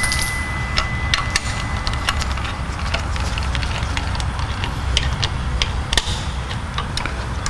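Hand ratchet with a 10 mm socket clicking in short, irregular runs as the thermostat-housing bolts are run down, over a steady low hum.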